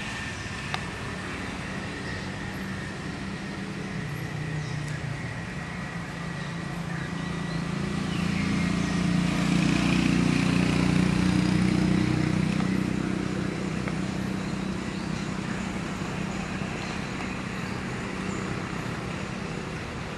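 A motor vehicle's engine rumbling past, swelling to its loudest about halfway through and then fading away, over steady outdoor background noise.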